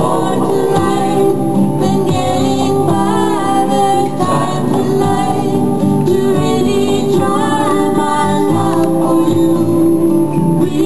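Hawaiian song playing as dance music: a singer's voice over guitar accompaniment.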